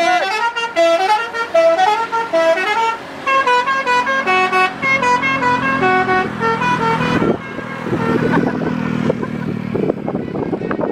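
Indonesian bus 'telolet' horn, a multi-tone musical horn, playing a quick tune of short stepped notes that opens with a rising sweep and stops about seven seconds in. Street and vehicle noise carries on after it.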